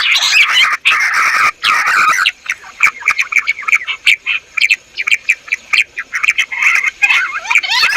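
A covey of bush quail calling together: many short, quick notes overlapping in a chattering chorus. It is dense for the first two seconds or so, thins out in the middle, and builds to a dense chorus again near the end.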